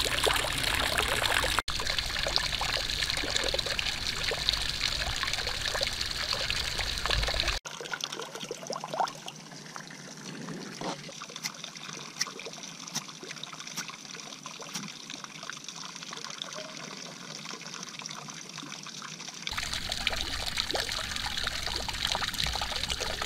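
Water running from a cast-iron drinking-fountain spout and splashing into its basin. After a cut it drops to a much quieter stretch of small clicks and knocks, and a steady rushing noise returns near the end.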